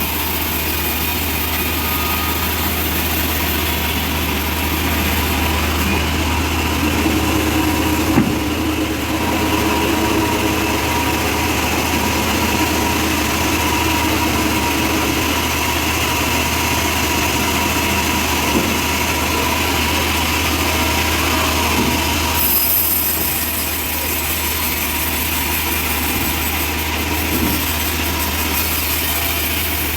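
Engine-driven portable band sawmill running steadily, with a single knock about 8 seconds in.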